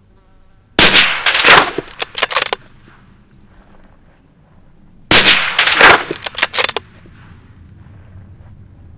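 Two rifle shots about four seconds apart, each followed by a rattle of sharp echoes lasting over a second. The rounds are fired into hard ground to make them skip and ricochet.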